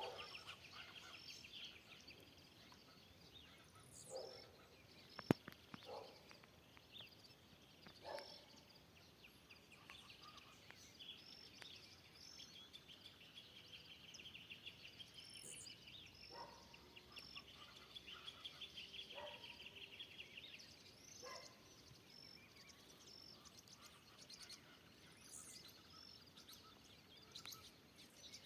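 Faint dawn chorus of wild birds in forest: several species calling at once, with repeated fast trills, many short high chirps and a few lower calls. A single sharp click about five seconds in stands out above them.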